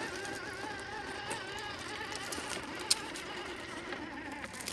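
RC 6x6 crawler's electric motor and gears whining as it climbs, the pitch wavering with throttle and load, with a sharp click about three seconds in.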